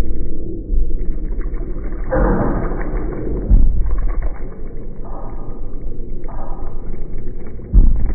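JBL Charge 3 portable speaker playing bass-heavy audio, heard as muffled low rumbling with repeated thuds and no treble.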